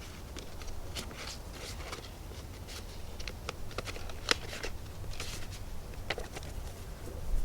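Paper cards and coupons being handled and shuffled: soft rustling with scattered light clicks, and one sharper click about four seconds in.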